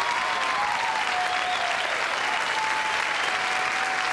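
Studio audience applauding steadily, the applause that closes a stand-up set.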